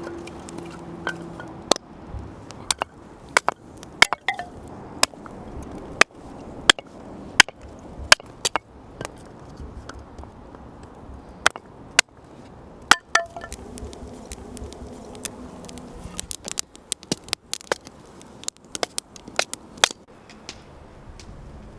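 Repeated chopping strikes, sharp and evenly paced at about one and a half a second, then coming faster and less regularly in clusters during the second half.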